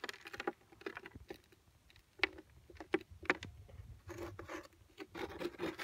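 Red dirt crumbled between fingers and scattered onto the plastic coil of a Minelab GPZ 7000 metal detector: light scratching, rubbing and pattering. A few short detector tones, about two seconds in and again just after three, answer a small gold nugget in the dirt passing over the coil.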